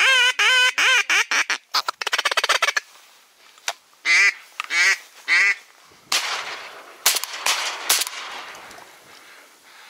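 Duck call blown in a series of quacks: a falling string of quacks, a fast chatter, then three single quacks. About seven seconds in come two sharp bangs about a second apart, shotgun shots.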